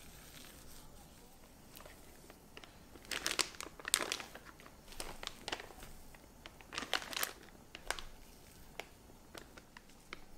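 Plastic piping bag crinkling in several short bursts as it is handled and batter is scooped into it, followed by a few light ticks.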